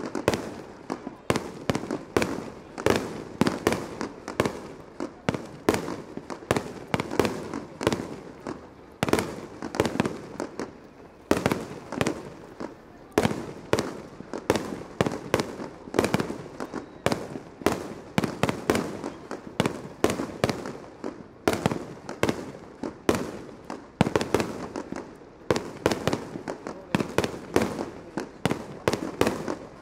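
Fireworks display: aerial shells launching and bursting in quick succession, a dense string of sharp bangs about two or three a second with no pause.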